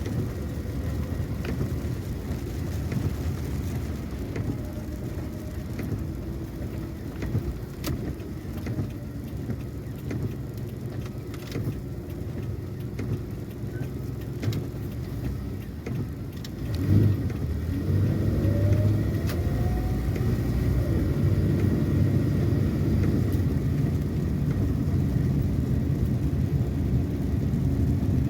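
Car driving: steady engine and road rumble with a few light clicks. About two-thirds of the way through, the engine revs up, rising in pitch, and runs louder from then on.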